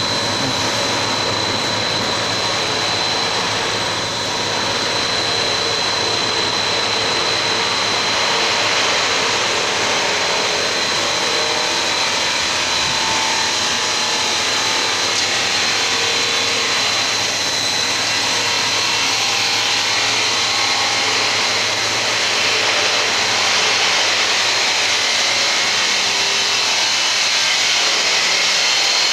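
Machinery of a dog-treat extrusion line running: a steady mechanical rush of noise with a constant high whine.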